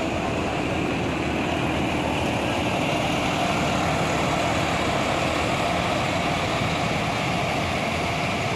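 Intercity coach engine running steadily as the bus pulls away across the terminal lot.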